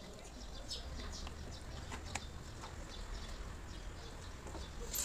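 Light scattered clicks and taps of hands fitting parts onto a DSG mechatronic unit on a metal workbench as it is closed up, with a few sharper clicks near the end.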